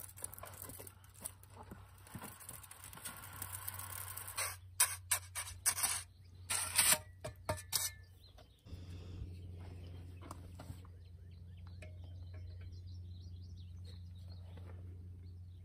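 Wet concrete sliding out of a plastic bucket around a steel post, then a trowel scraping and working the wet concrete in a run of short, loud strokes about halfway through. After that, a steady low hum with faint ticks.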